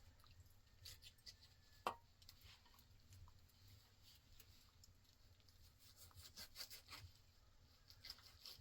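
Near silence with faint scattered clicks and light taps, and one sharper knock about two seconds in.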